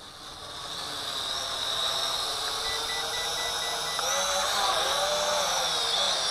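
ZC Toys Z1 quadcopter's motors and propellers whining in flight. It grows louder over the first two seconds as it comes in close, then holds, its high pitch wavering up and down.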